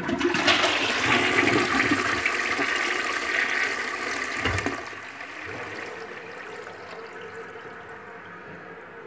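Push-button toilet with a newly fitted flush valve flushing: a loud rush of water into the bowl starts at once, ends with a low gulp about halfway through, then settles to a quieter steady hiss as the cistern refills through its new fill valve.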